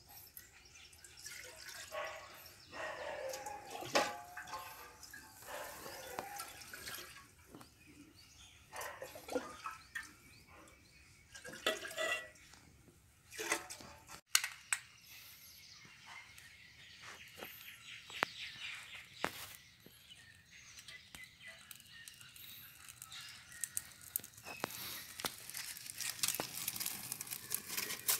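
Water poured from a small vessel into an aluminium pot, splashing and trickling in short spells. After a break, dry palm-frond kindling crackles and rustles as it is pushed into a metal stick stove, the crackles coming thicker near the end.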